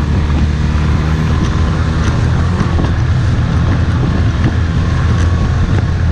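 Outboard motor running steadily at speed, driving a small inflatable boat over choppy water, with wind on the microphone and a few short knocks as the hull meets the chop.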